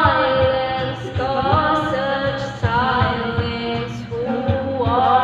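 Girl singing karaoke into a microphone, holding long notes, over a backing track with a steady beat.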